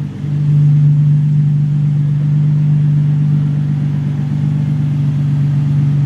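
Nissan 350Z's 3.5-litre V6 engine idling steadily, a constant low hum.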